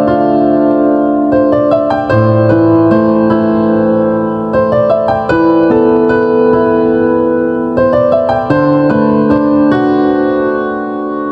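Background piano music: held chords changing every couple of seconds, with clusters of quick higher notes between them, getting quieter near the end.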